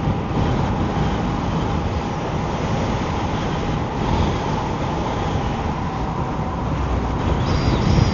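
Wind buffeting the microphone while riding an Emove Roadster electric scooter, with a faint steady whine from the scooter's electric drive underneath.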